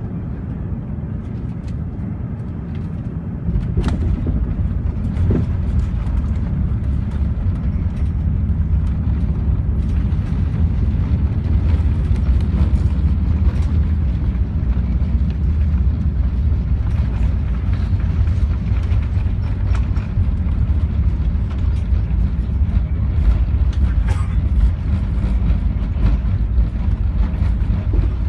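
Cabin noise inside a Lufthansa Airbus A380 on landing: a steady low rumble of engines, airflow and airframe that steps up sharply about three and a half seconds in, then stays loud with scattered light knocks.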